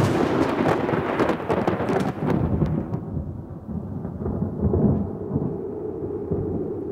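Thunder: a crackling clap for the first two or three seconds, then a low rolling rumble that slowly fades.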